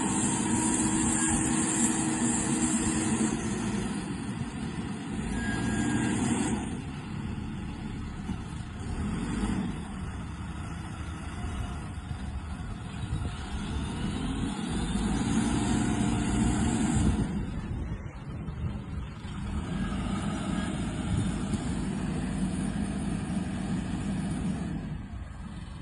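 Excavator's diesel engine running under load, revving up and down repeatedly as the machine tries to move with a stabilizer leg still lowered.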